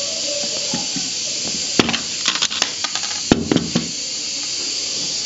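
Nail gun driving 3/4-inch nails into an MDF cabinet back panel: a quick run of sharp clacks between about two and four seconds in, the strongest three a little under a second apart, over a steady hiss.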